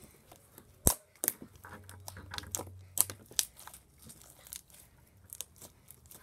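Homemade white-glue-and-detergent slime being kneaded and squished by hand on a tabletop, giving irregular sticky crackles and pops.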